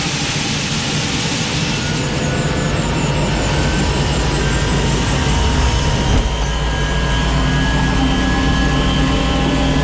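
UH-1H Huey's Lycoming T53 turboshaft engine running up after start, heard from inside the cabin. The turbine runs with a steady whine and hiss, and a low rumble builds from about three seconds in as the rotor comes up to speed. A steady hum joins near the end.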